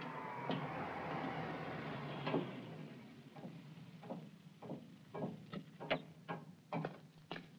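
A man's footsteps climbing down a metal ladder and stepping off: a run of separate sharp knocks, about two a second, starting about three seconds in. Before them, a steady outdoor hiss.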